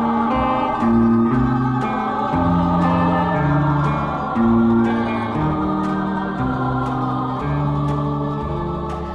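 Music passage with no sung words: held chords and a stepping bass line over a light, steady beat.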